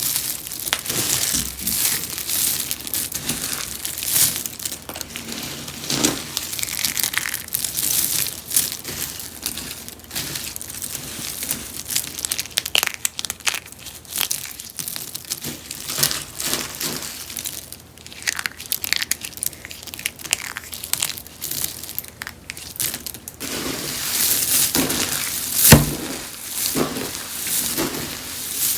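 Rose-shaped soaps being crunched and crushed, a dense run of crisp crackling and crumbling with many sharp snaps. There is a quieter stretch past the middle, then one sharp crack near the end.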